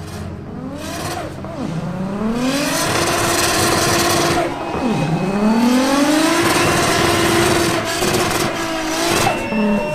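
Car engine accelerating hard under load. Its pitch climbs, drops sharply about five seconds in as it shifts gear, then climbs again and holds high before cutting off near the end.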